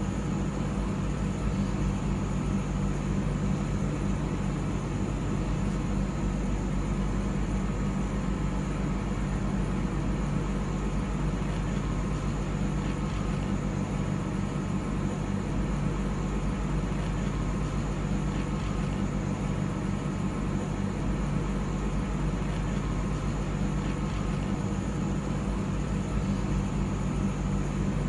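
Steady low hum of vehicle engines in slow road traffic.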